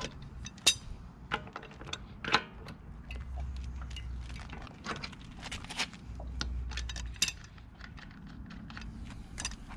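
Breaker bar and socket on a car wheel's lug nuts: scattered metallic clicks and clinks as the socket is fitted and the nuts are broken loose, with a few louder sharp snaps among them.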